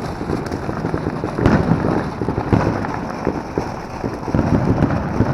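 Consumer fireworks going off: a dense run of crackling pops with several louder bangs among them.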